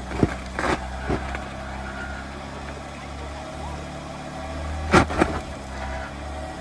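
Jeep engine running at low, steady throttle while rock crawling, with a few sharp knocks, the loudest about five seconds in.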